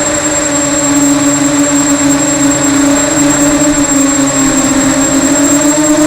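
Electric motors and propellers of an FPV racing multirotor drone buzzing steadily at a nearly constant pitch, with a thin high whine above it.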